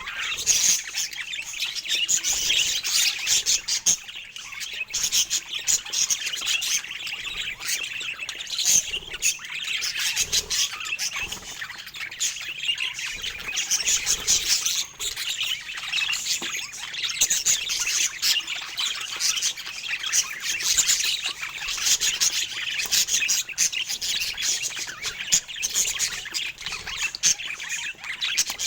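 Budgerigars chirping and chattering continuously, a dense run of quick twittering notes with occasional squawks.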